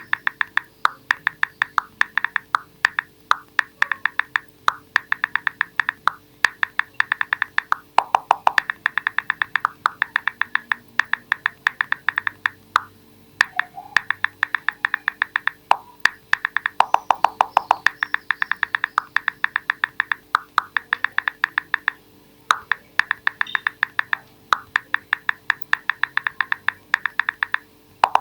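iPhone on-screen keyboard click sounds from steady typing: quick runs of short, sharp clicks, several a second, broken by brief pauses.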